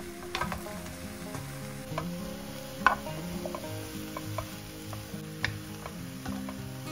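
Diced eggplant sizzling in oil in a frying pan while a wooden spoon stirs it, with scattered knocks of the spoon and cubes against the pan, the loudest about three seconds in.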